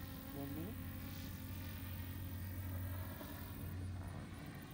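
Electric motors and propellers of the NASA Langley Aerodrome No. 8 tandem tilt-wing VTOL testbed buzzing steadily in flight.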